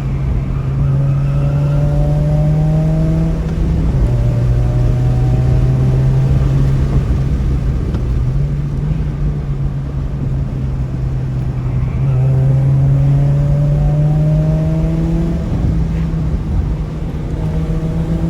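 Ford car engine rumbling under load, its pitch climbing slowly and dropping back about 4 s and 12 s in and near the end at upshifts of the manual gearbox, with wind and road noise rushing underneath.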